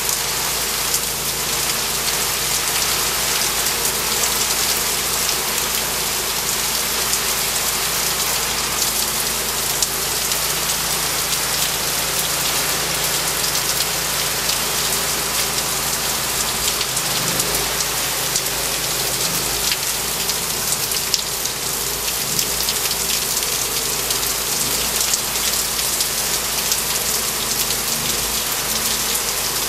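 Heavy rain pouring down in a steady, dense hiss: a summer downpour.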